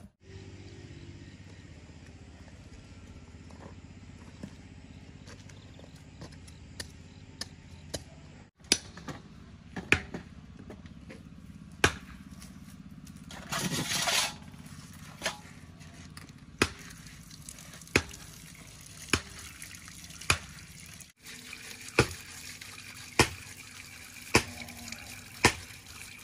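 Water running from an outdoor tap as tubers are washed under it, with sharp knocks about once a second and a short louder splash about halfway through.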